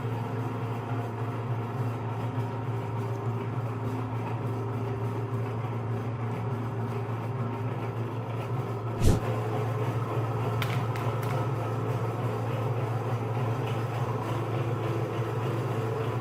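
Electric meat grinder's motor running with a steady hum while grinding ice cream, with a single sharp knock about nine seconds in.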